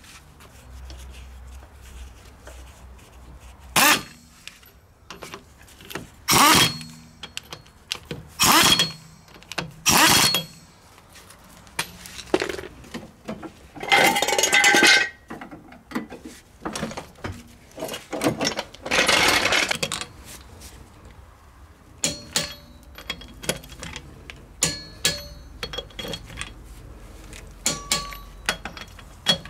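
Metal clinks and knocks from refitting a car's steel road wheel with its wheel bolts and a wheel brace. A few loud sharp knocks come first, then two rattling noises of about a second each, then a run of light quick clinks as the bolts are done up with the wheel brace.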